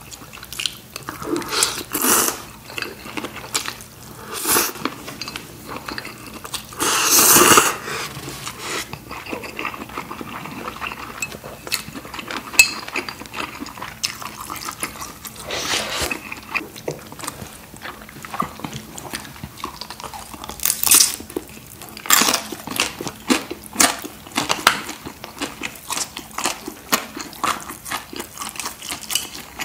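Close-miked eating sounds: a person bites and chews spicy instant ramen noodles and dumplings, with many short wet clicks and smacks throughout. About seven seconds in comes one longer, louder stretch of eating noise.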